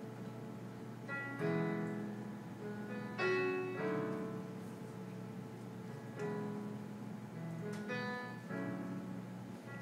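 Piano-voiced keyboard played slowly: chords struck every second or two, each ringing on and fading before the next.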